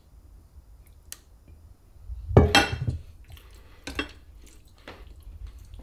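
A spatula scraping buffalo chicken dip out of a stainless steel mixing bowl into a ceramic casserole dish. The metal bowl is set down on the counter with a loud clank a little over two seconds in, followed by a few light taps of the spatula against the dish.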